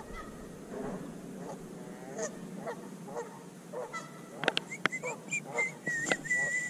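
Geese honking, a string of short calls repeating about every half second. A few sharp clicks come about four and a half seconds in, and a thin high whistle-like tone sounds over the last two seconds.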